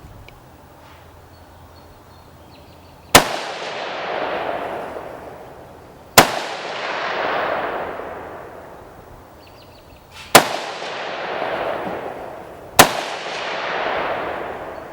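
Four AR-15 rifle shots, spaced unevenly about three, four and two and a half seconds apart. Each sharp crack is followed by a long rolling echo that swells and fades over two to three seconds.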